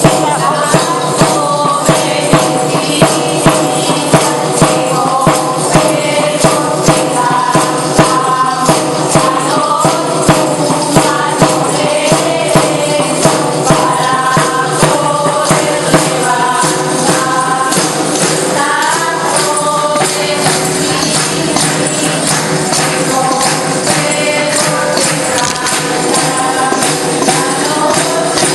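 Asturian folk music: a group of voices singing a melody over a steady tambourine beat. The beat strokes are sharpest through the first half and blend into the song later on.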